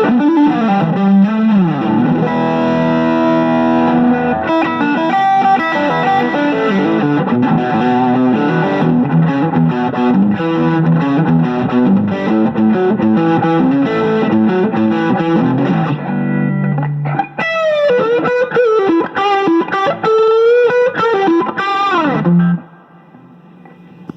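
Firebird electric guitar played through a Crate GT-80 amplifier with distortion: chords and riffs, then sliding, wavering notes that end suddenly about two seconds before the end, leaving a low amp hum.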